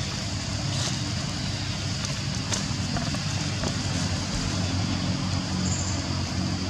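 Steady low rumble of a running engine, with a constant high hiss above it and a few faint clicks.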